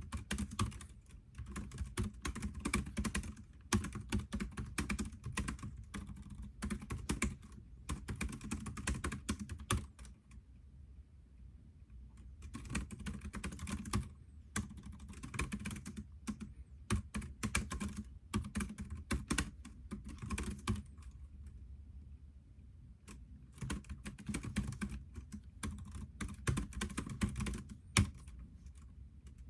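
Computer keyboard typing in quick runs of key clicks, with short pauses about a third and two-thirds of the way through.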